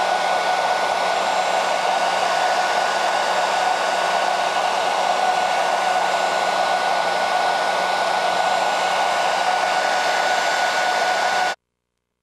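Hair dryer blowing steadily, with a thin steady whine over its rush of air, drying the fresh grey paint on a carving; it is switched off suddenly near the end.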